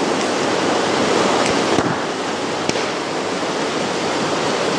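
Shallow forest stream running over rocks: a steady rushing of water, with a couple of faint clicks about two to three seconds in.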